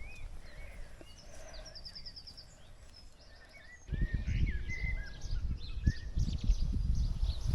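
Small birds chirping, with a quick trill of repeated notes about a second and a half in. From about four seconds in, irregular low rumbling noise on the microphone becomes the loudest sound, while the chirps carry on.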